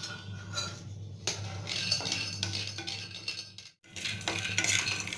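Peanuts being dry-roasted in a non-stick kadhai, rattling and clicking against the pan as they are moved about with a wooden spatula, over a steady low hum. The sound drops out briefly a little under four seconds in, and the clicking is denser after that.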